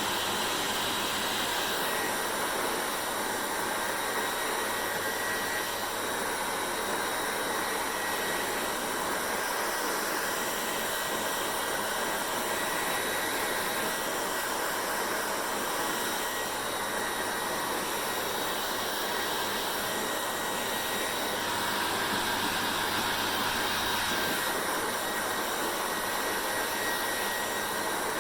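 Hair dryer running steadily: a continuous rush of air with a faint low hum and a thin high whine. The tone shifts slightly a few times.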